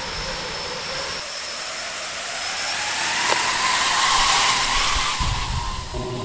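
Propeller hum of a 7-inch FPV quadcopter on 3D-printed eight-blade propeller hubs, 32 blades in all, flying low past close by. The hum rises in pitch and is loudest about four seconds in, then eases off as the drone moves away.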